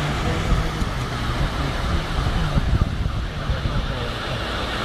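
Steady, dense outdoor noise of a flooded street, with distant voices faintly wavering underneath.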